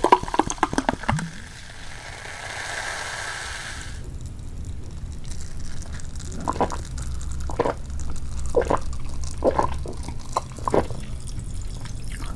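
Sprite poured into a glass mug over ice, with the pour finishing about a second in and the soda then fizzing in an even hiss for a couple of seconds. Several seconds later it is drunk in about five gulps, roughly one a second.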